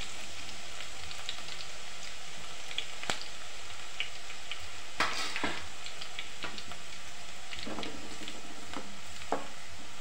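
Minced garlic frying in hot oil in a steel pan: a steady sizzle with scattered pops and crackles, a sharp click about three seconds in and a brief burst of louder crackling about five seconds in.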